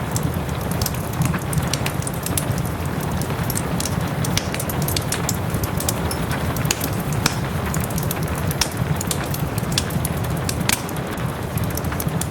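Wood fire crackling in a fireplace with many sharp pops and snaps, over a steady wash of soft rain.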